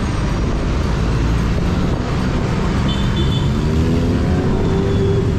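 Steady low rumble of street traffic, car and motorcycle engines, with one vehicle's engine note rising slowly in pitch about halfway through.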